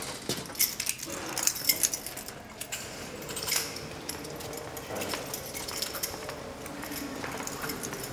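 Keys jangling and clinking on an officer's belt, with footsteps on a hard floor.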